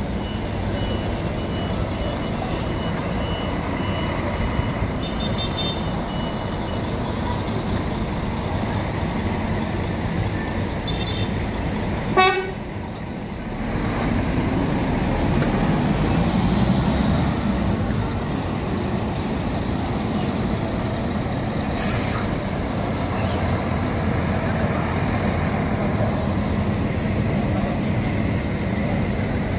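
Bus terminal traffic: heavy buses' diesel engines running with a steady low rumble, one swelling up as it pulls away about halfway through. A short sharp toot about twelve seconds in, and a brief hiss of air later on.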